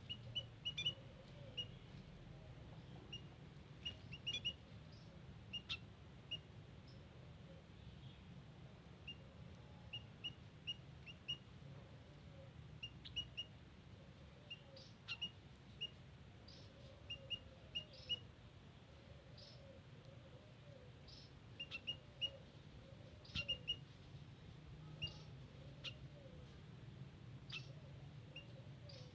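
White-headed munias giving short, high chirps in quick clusters of two or three, repeated throughout, over a low steady hum.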